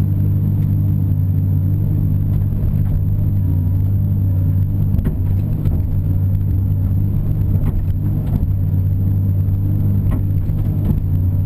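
Caterpillar 330 excavator's diesel engine running steadily under work, heard from inside the cab, with a few light knocks now and then.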